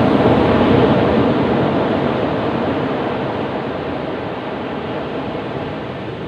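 Ocean surf on a beach: the rush of a breaking wave, loudest at the start, slowly dying away as it washes out.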